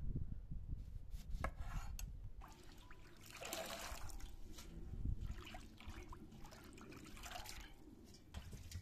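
A couple of knife taps on a cutting surface, then a bunch of leafy herbs swished and lifted out of a basin of water, water splashing and dripping back into the basin in uneven bursts.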